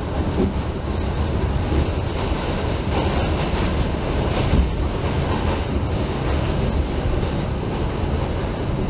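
NYC subway D train in motion, heard from on board: a steady rumble and rush of noise without let-up.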